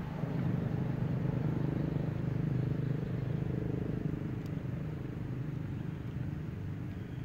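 Low, steady engine rumble of a motor vehicle that swells slightly and then slowly fades, like a vehicle running close by and moving off.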